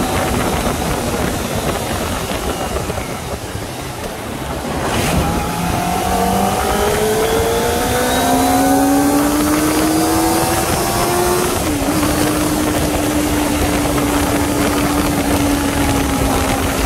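Kawasaki Ninja ZX-25R's 250 cc inline-four engine under way, with wind rush. The engine eases off for a few seconds, then pulls with a rising pitch, drops sharply at a gear change about twelve seconds in, and settles to a steady cruise.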